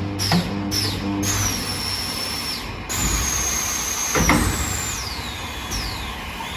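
Automatic oven-cavity bending and spot welding machine running: a series of high servo-like whines, each falling in pitch and then holding, with one sharp thump about four seconds in.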